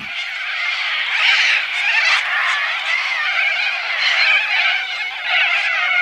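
A large flock of little corellas screeching all at once, a dense, unbroken chorus of cries.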